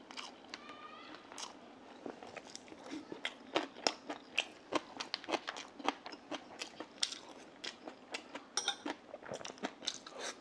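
Close-miked eating sounds: chewing and lip smacks as grilled eel is eaten, mixed with chopsticks tapping against the dishes. It is a rapid, irregular run of short clicks that gets busier after a few seconds.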